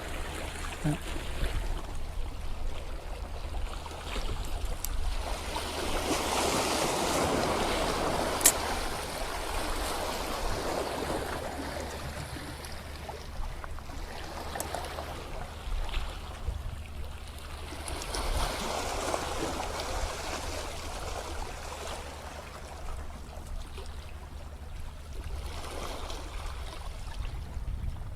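Sea water surging and washing over shore rocks in repeated swells that rise and fall, over a steady low rumble. A single sharp click comes about eight seconds in.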